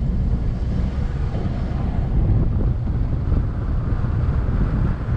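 Low, uneven rumble of a Mazda CX-9 driving across soft, rutted sand, mixed with wind buffeting the microphone.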